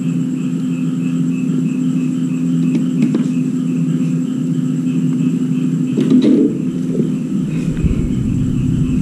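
A machine running with a steady hum of several low tones and a faint high whine that pulses a few times a second. About six seconds in a brief clatter of objects being handled stands out, and a low rumble comes up near the end.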